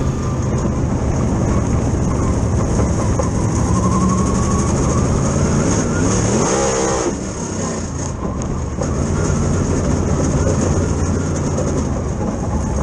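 Dirt Super Late Model's V8 race engine running, heard from inside the cockpit, with the revs easing off and dipping about halfway through before picking up again.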